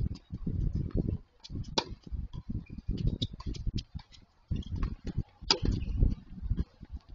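Wind buffeting the microphone in irregular low rumbles, with two sharp racket-on-ball strikes of a tennis rally, one about two seconds in and another past five seconds, and faint ticks of distant balls.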